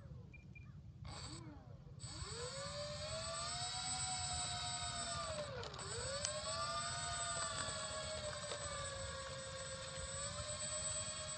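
The four electric motors and propellers of a HobbyKing Avro Lancaster RC model whine as it taxis. The pitch climbs from about two seconds in, dips sharply near the middle, then rises again and holds fairly steady.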